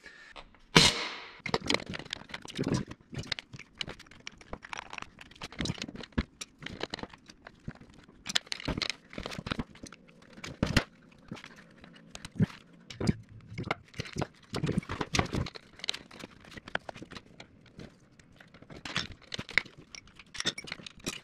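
Irregular clicks, knocks and clatter of hand tools on metal, mixed with crinkling handling noise, as a Bennett hydraulic trim tab actuator is taken apart. The loudest knock comes about a second in.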